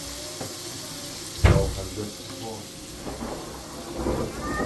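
Steady watery hiss, broken by one sudden loud thump with a deep low end about a second and a half in.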